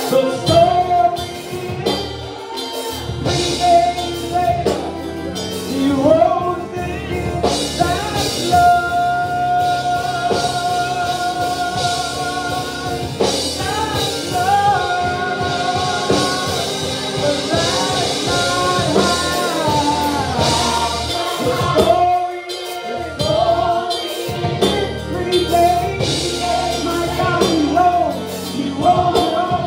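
Live gospel praise singing: a lead singer and backing vocalists with band accompaniment and drums, including a long held note about a third of the way through.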